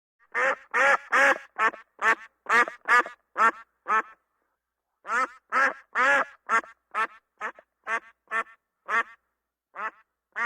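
A duck quacking in a rapid series of short, nasal quacks. There is a pause of about a second roughly four seconds in, then another run of quacks that grows quieter toward the end.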